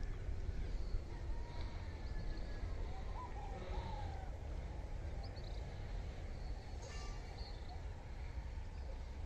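Waterside ambience dominated by a steady low wind rumble on the microphone, with a few faint bird calls about three to four seconds in.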